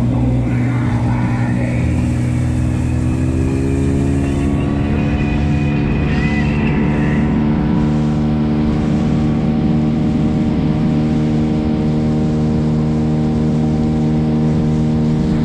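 Gladiator 9.9 outboard motor running under way, speeding up about three seconds in and then holding a steady pitch.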